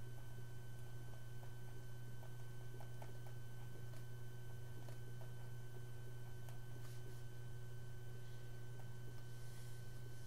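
Steady low electrical hum with a fainter high steady tone above it and a few faint ticks.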